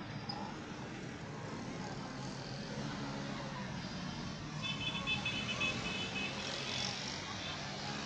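Street noise with motor vehicle engines, motorbikes among them, running steadily. About halfway through, a pulsing high-pitched tone sounds for a second and a half.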